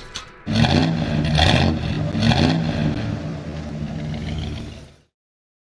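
Car engine revving in three quick surges, then running on more steadily before cutting off abruptly.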